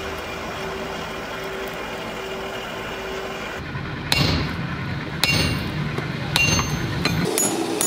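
Coal forge fire burning with a steady rush and a constant low hum. Then come four ringing hammer blows on an anvil, roughly a second apart, forging the red-hot jaw of a rusted steel pipe wrench.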